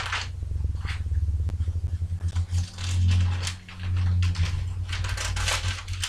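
Thin Bible pages being leafed through: several short papery rustles and crackles. A low hum sits underneath and swells in the middle.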